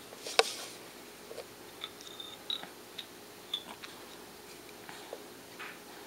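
A baby mouthing and gnawing on a rod-and-bead grasping toy: scattered short clicks and mouth sounds, the loudest a sharp click about half a second in.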